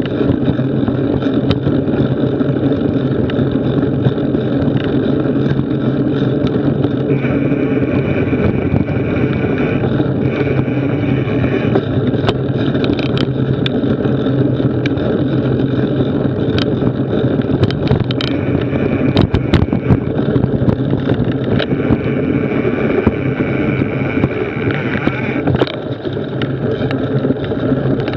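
Mountain bike rolling along a dirt trail, heard from a camera mounted on the bike: a steady rumble of tyres and frame vibration with some wind noise, broken by many sharp rattles and knocks over bumps. A high buzz comes and goes several times.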